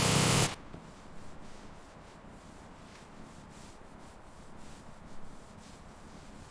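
A loud, steady rust-stripping noise cuts off suddenly about half a second in. It gives way to faint, irregular rubbing strokes of sanding on the bare body metal.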